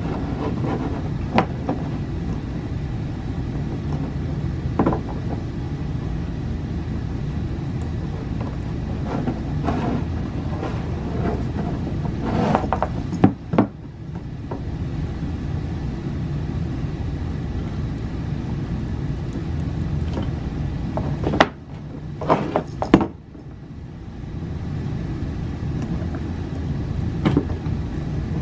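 Steady low background rumble with a few scattered sharp metallic clicks from handling a wire cable, crimp sleeve and vice grips, the loudest about halfway through and again near the end.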